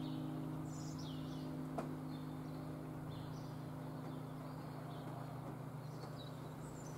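The four 1897 Rüetschi bronze church bells of St. Oswald, tuned c', es', f' and as', ringing out: their low humming tones hang on without new strikes and fade slowly. Small birds chirp throughout, with a single click about two seconds in.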